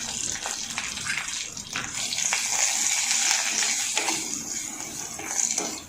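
Ground garlic, black pepper and cumin paste frying in hot oil in a tempering pan: a steady sizzling hiss with small crackles, cutting off just at the end.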